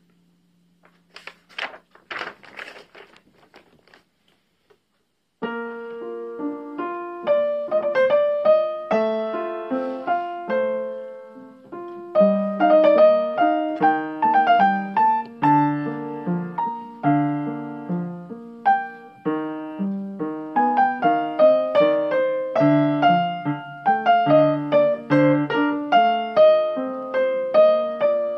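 Paper rustling as a page of the score is turned on an upright piano's music stand, then the upright piano starts playing again about five seconds in, a steady run of chords and melody notes.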